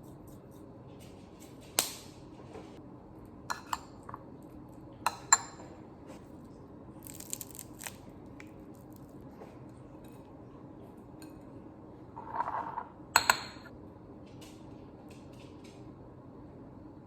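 Scattered light clinks and knocks of small hard objects being handled and set down, with a brief hiss about seven seconds in and a short scrape or rustle followed by two sharp clicks near the end.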